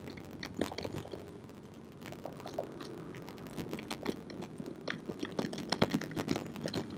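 Socket ratchet on an extension clicking irregularly as a bolt on a MAF sensor housing is turned, with light scraping of the tool against plastic.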